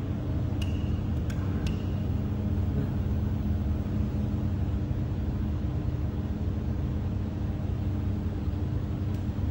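Laser welding machine running with a steady low hum while its rotary attachment turns. A few light metallic clinks come in the first two seconds.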